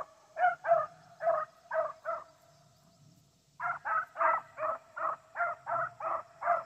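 Beagles baying on a rabbit's trail: a regular run of short calls, about two or three a second. The calls stop for about a second and a half near the middle, then pick up again.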